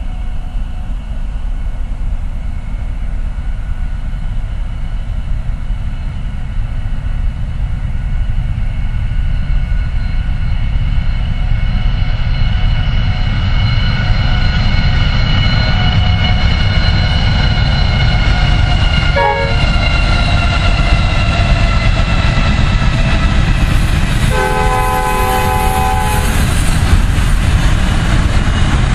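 Diesel-hauled Pacific National freight train approaching and passing, with a heavy low rumble that grows louder and a steady higher whine over it. A horn sounds one chord of about a second and a half near the end.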